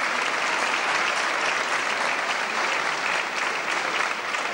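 Concert-hall audience applauding, a dense and steady clapping.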